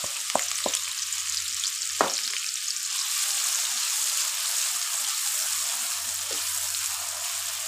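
Chopped onions sizzling in hot ghee in a wok while being stirred with a wooden spatula. There are a few sharp knocks against the pan in the first two seconds, the loudest about two seconds in, over the steady sizzle.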